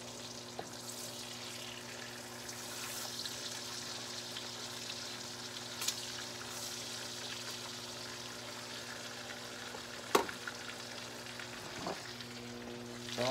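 Bacon sizzling steadily in a cast-iron skillet while a spatula stirs it, with a steady low hum underneath. A few sharp knocks of the utensil against the pan, the loudest about ten seconds in.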